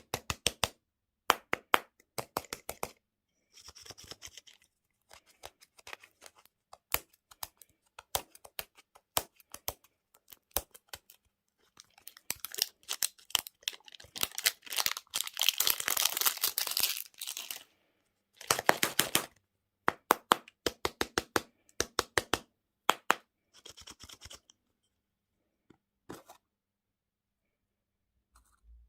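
Food packaging being handled and torn open at close range: a run of sharp clicks and taps, with a longer stretch of tearing and crinkling in the middle.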